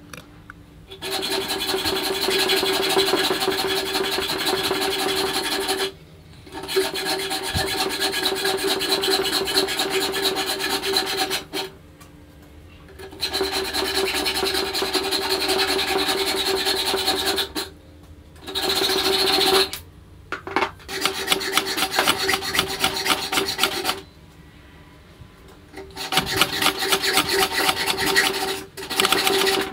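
Hacksaw cutting through a threaded steel pipe clamped in a bench vise: fast rasping strokes in runs of several seconds, stopping briefly about five times, with a steady ringing tone from the metal while the blade works.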